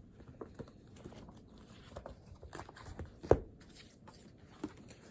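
Scattered light taps and rustles of things being handled at a desk, with one sharp knock a little over three seconds in.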